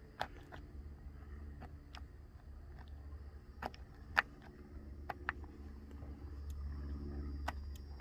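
Scattered light clicks and ticks of a screw and door-latch parts being handled and turned by hand against an RV baggage door, with one sharper click about four seconds in. A steady low hum runs underneath.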